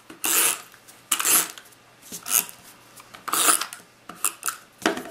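Hand-held adhesive dispenser pressed and dragged across cardstock in about six short scraping strokes, laying adhesive on the paper piece.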